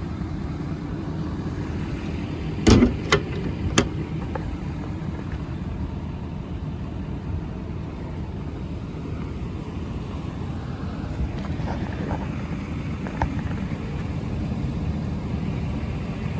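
Ford 6.7 L Power Stroke V8 turbo-diesel idling with a steady low rumble. Three sharp metal clunks about three seconds in.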